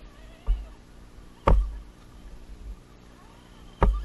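Electric motors of radio-controlled scale crawler trucks whining faintly and wavering in pitch as they drive on a rough trail. Three sharp knocks with a low thud cut in, about half a second in, a second and a half in (the loudest), and near the end, as the truck carrying the camera jolts over the ground.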